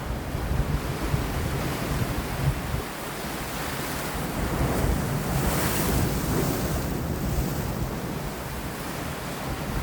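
Sea waves washing against rocks, with wind buffeting the microphone in a low rumble. A wave surges and washes in a little past halfway, then ebbs.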